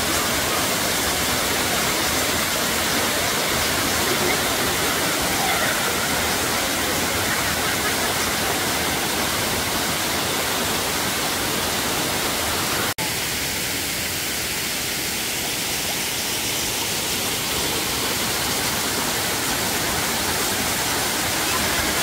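Waterfall: falling water rushing in a steady, even hiss. About thirteen seconds in it breaks off for an instant and comes back slightly thinner in the middle range.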